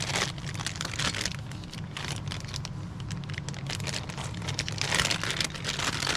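Plastic packaging crinkling and rustling in irregular handfuls as parts of a backup camera kit are taken out and handled, over a steady low hum.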